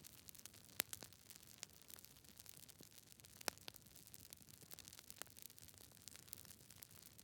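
Wood fire crackling: sharp pops and snaps at irregular intervals over a faint steady hiss.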